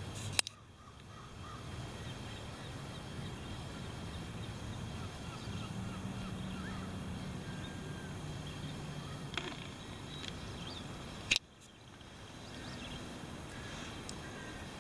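Shoreline ambience: a steady low rumble with faint, short bird chirps in the middle, broken twice by a sharp click, near the start and again about eleven seconds in, each followed by a brief dip in level.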